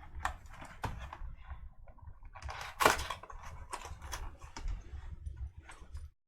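Cardboard card box and foil card pack being handled and tugged: an irregular run of sharp clicks and crinkles, the loudest about three seconds in, as a stuck pack is worked out of the box. The sound cuts off abruptly near the end.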